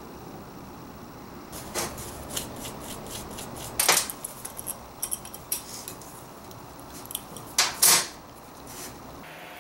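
Hand tools clinking and clattering against a steel work table and the metal body of an old bottle jack as it is being taken apart: a scattered run of sharp metallic clicks, loudest about four seconds in and again near eight seconds.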